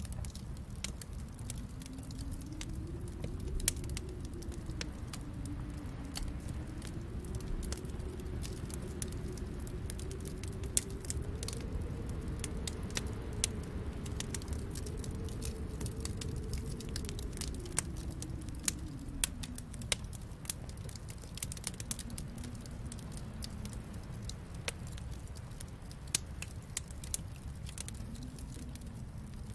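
Wood fire crackling with scattered sharp pops over a low, steady rumble. A low tone slowly rises and falls through the middle, then sinks back down.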